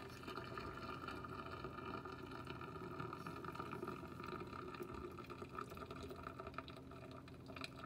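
Hot starchy rice-cooking water draining and trickling through a mesh strainer into a stainless steel sink after boiled rice is poured off, with a few faint taps near the end.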